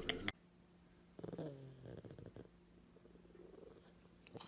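A pet's single low call of about a second, falling steadily in pitch, about a second in, as a cat and a dog face each other. A few short clicks sound at the very start.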